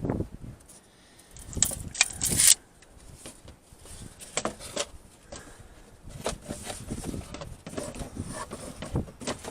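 Wooden boards being handled, rubbed and scraped on a workbench: a louder scraping patch about a second and a half in, then scattered light knocks and rubs.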